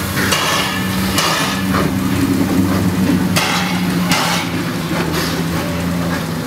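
Steam tank locomotive moving off slowly: irregular, slow chuffs and hissing steam from the cylinders, over a steady low hum.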